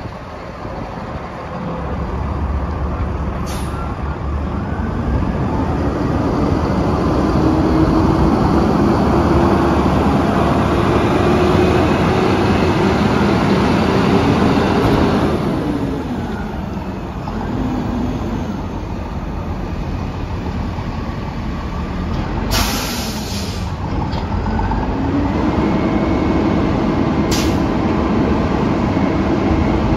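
Front-loader garbage truck's diesel engine pulling away and driving, its tone rising, dropping off about halfway through, then rising again as it accelerates. Short air-brake hisses cut in a few seconds in, a longer one about two-thirds through, and another near the end.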